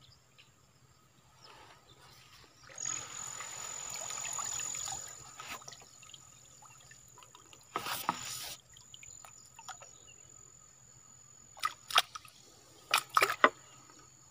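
Water trickling and dripping off a bamboo-framed lift net as it is raised out of the water, a steady run of water for a couple of seconds, then a brief louder splash about eight seconds in and a few short sharp splashes or knocks near the end.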